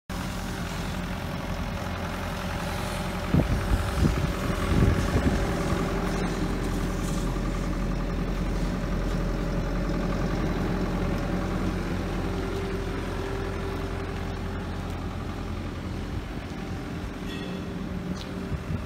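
Bobcat E55 mini excavator's diesel engine idling steadily. A few loud low bumps come about three to five seconds in.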